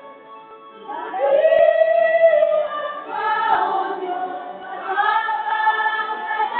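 A women's choir singing together, holding long notes in phrases. The first phrase comes in about a second in.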